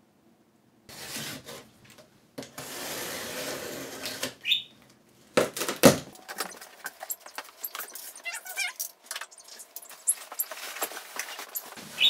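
A large cardboard shipping box being opened and handled: flaps and cardboard rustling and scraping, a loud thump about six seconds in, then a run of small clicks and rustles as the boxed contents are shifted and pulled out.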